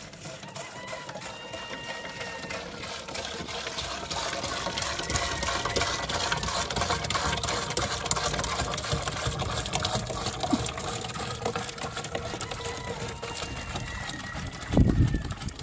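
Small motorized sprayer pump running steadily with liquid spraying out, as used to spray sheep with tick treatment. There is a low thump near the end.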